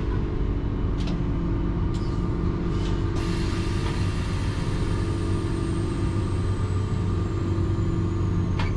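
Steady hum and rumble inside a streetcar, with a few sharp clicks and a faint high whine that starts about three seconds in and sinks slowly in pitch.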